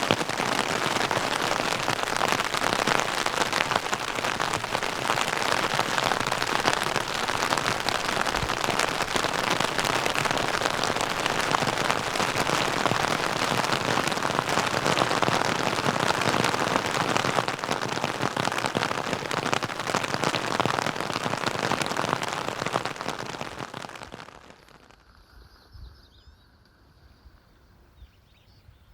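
Rain mixed with hail pelting down, a dense steady patter of many small impacts. It falls away about 24 seconds in, leaving near quiet.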